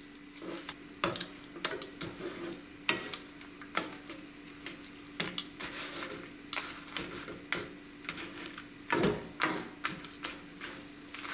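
Dried guajillo and pasilla chiles frying in shallow oil in a nonstick pan, crackling as kitchen tongs turn and tap them against the pan: irregular sharp clicks, with a louder cluster about nine seconds in. A steady low hum runs underneath.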